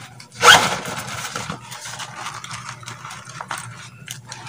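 Wires being handled and twisted together by hand close to the microphone: one loud rasp about half a second in, then light scattered clicks and scrapes.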